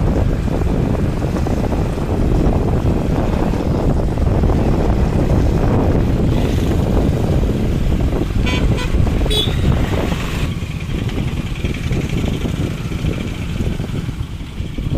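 Wind rumbling on the microphone mixed with passing road traffic, and a short vehicle horn toot about eight and a half seconds in.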